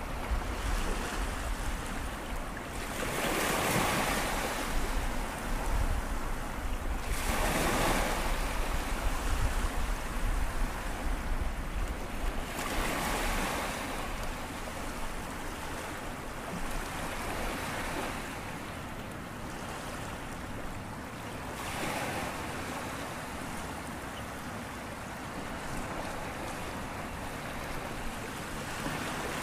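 Small waves breaking and washing up a sandy shore among rocks: a steady sea hiss that swells several times as each wave breaks, the strongest breaks in the first half.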